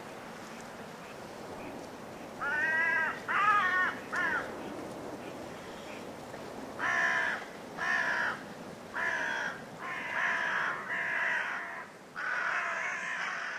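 Crow-family bird cawing over a steady background hiss: three harsh calls in quick succession, then after a pause a run of six more roughly a second apart, the last one longer.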